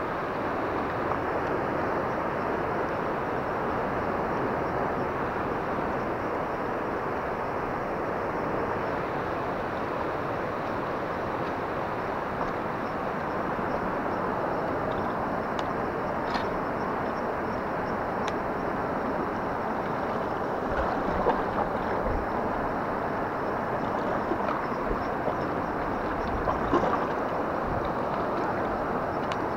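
Steady rushing of fast river current flowing over and around rocks, with a few faint clicks in the second half.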